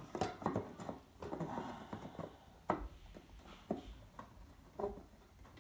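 Light, irregular knocks and brief scrapes of two crown molding test pieces being pressed and shifted against a wall and against each other to check the fit of the joint.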